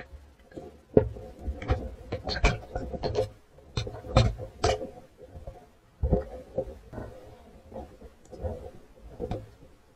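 Muffled underwater knocks and clicks picked up by a submerged camera, over a low rumble of water movement; the sharpest knock comes about a second in, a dense cluster follows over the next few seconds, then softer knocks.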